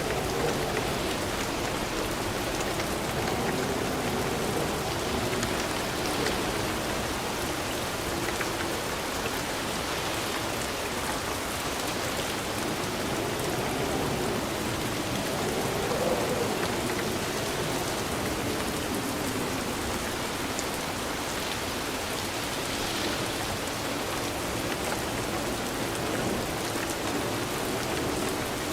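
Steady rain falling in an even, unbroken hiss.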